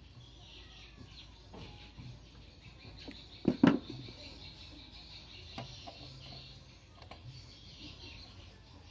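Hand-tool handling: small metallic clicks of pliers working a wire terminal, with one louder clack about three and a half seconds in, over a faint steady high-pitched background.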